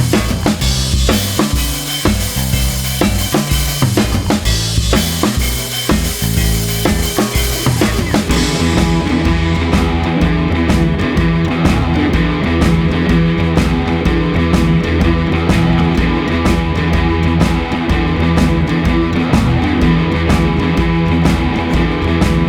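Background music: a drum kit playing a beat, with a fuller band sound of held notes coming in about eight seconds in.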